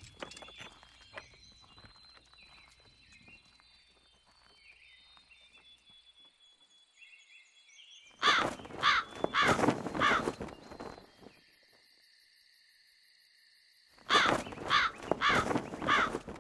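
A crow cawing in two bouts of about four or five caws each, the first starting about eight seconds in and the second about six seconds later.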